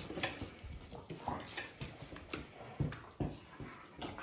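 Dogs playing together: irregular scuffles and knocks of paws and bodies on the floor, with short dog vocal sounds in between.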